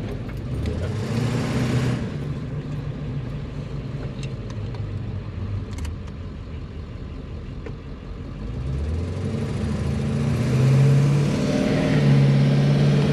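Ford 7.3 Powerstroke turbo-diesel V8 pulling under hard acceleration, heard inside the cab: the engine note climbs early, settles, then climbs again from about eight seconds in. The turbo builds almost no boost as it pulls.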